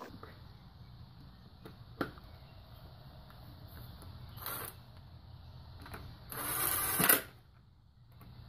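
Cordless power driver spinning oiled head bolts down into a Toyota 1ZZ-FE engine. A short whir comes about four and a half seconds in, and a longer one of under a second near the end, the loudest, which stops with a sharp knock as the bolt seats. A single click sounds about two seconds in.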